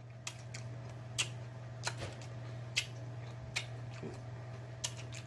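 Close-miked chewing of seafood: about seven short, sharp wet mouth smacks and clicks at uneven intervals, over a steady low electrical hum.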